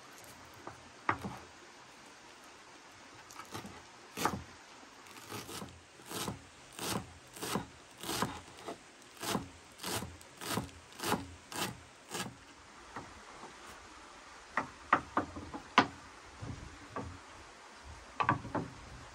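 Chef's knife chopping fresh parsley on a wooden cutting board: a steady run of short knocks of the blade on the board, a little under two a second, followed by a few sharper, separate knocks near the end.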